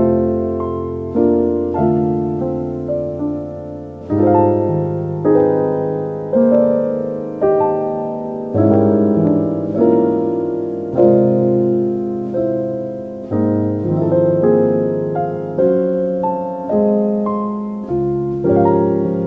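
Slow, calm piano music: chords and notes struck every second or so, each left to fade.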